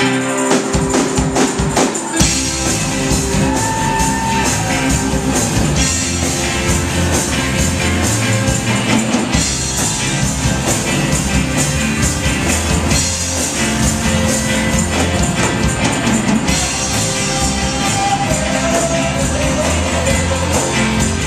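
Live gospel rock band playing loudly: electric guitars, bass guitar and a drum kit with constant cymbal hits.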